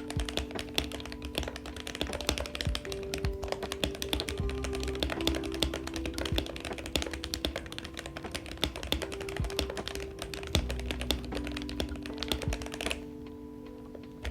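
Fast, continuous typing on a MelGeek Mojo75 aluminium mechanical keyboard fitted with lubed Matcha switches: a dense run of keystroke clacks that stops about a second before the end. Background music plays underneath.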